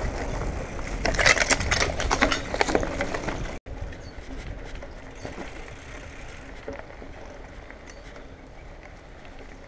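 Marin Bobcat Trail 5 hardtail mountain bike rolling over gravel, its tyres crunching and the bike clattering and rattling. After a sudden cut about three and a half seconds in, it rolls on a dirt trail with quieter, even tyre noise and occasional ticks.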